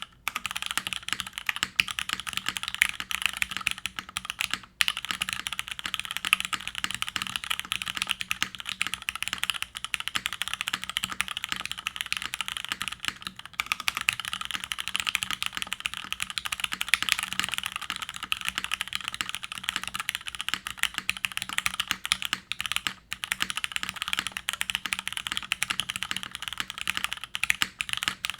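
Steady fast typing on a Plywrks Spyder TKL mechanical keyboard: vintage Cherry MX Black linear switches, lubed and filmed, in a top-mounted carbon fiber plate, under GMK keycaps. A dense run of keystroke clacks with brief pauses about 5, 13 and 23 seconds in.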